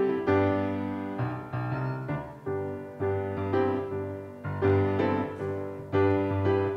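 Grand piano playing a slow piece in full chords, each chord struck and left to ring out before the next.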